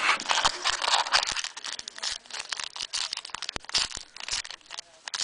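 Foil wrapper of a trading-card pack crinkling and crackling as it is torn open, a dense run of sharp rustles and crackles.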